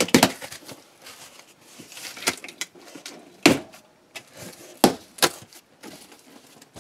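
Cardboard box being opened by hand, its top flaps pried up and pulled apart, giving several sharp cracks and knocks amid rustling. The loudest crack comes about halfway through.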